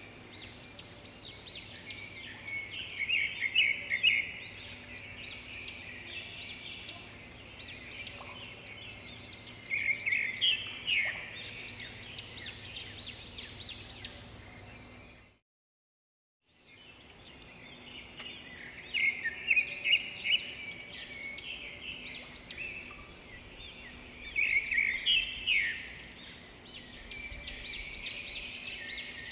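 Small birds chirping and twittering in quick, high-pitched bursts that come in clusters every few seconds. The sound cuts out completely for about a second and a half midway.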